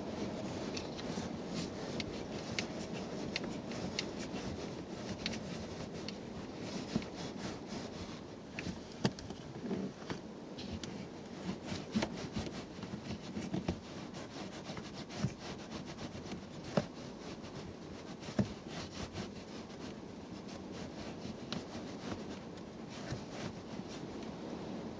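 Hands pushing a seat heater pad in under a car seat cushion's fabric cover: continuous rubbing and rustling of cloth and pad, with scattered small clicks and knocks.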